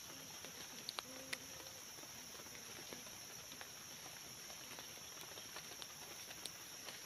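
Faint rustling of dry leaf litter and small sticks as a ground snare is set by hand, with a few sharp twig clicks about a second in, over a steady high-pitched drone of forest insects.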